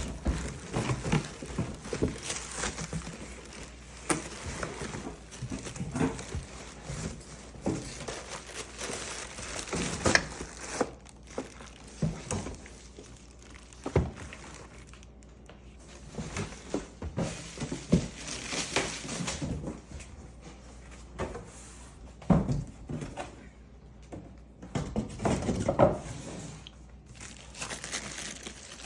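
Packaging crinkling and rustling as a new coffee maker is unpacked, with scattered knocks and clicks of its parts being handled.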